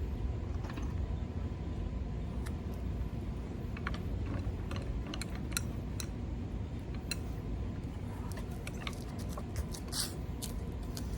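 Scattered light metallic clicks and knocks of tools and parts being handled, busier in the second half, over a steady low hum.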